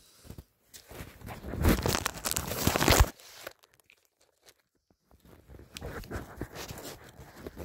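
Rustling and crinkling handling noise, dense and crackly for about two seconds near the start, then fainter rustles in the last couple of seconds.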